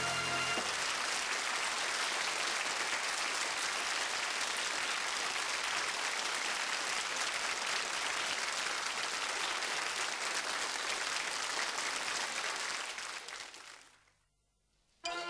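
Studio audience applauding at the end of a sitcom scene, fading away near the end. A short music sting is just ending as it starts.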